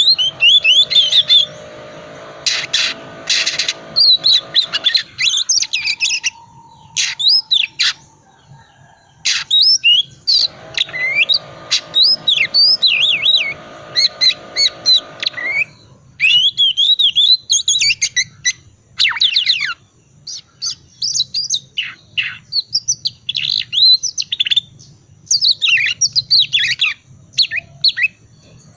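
Oriental magpie-robin singing a fast, twittering 'ngriwik' song: runs of quick chirps, trills and whistled notes broken by short pauses, with a few sharp clicking notes.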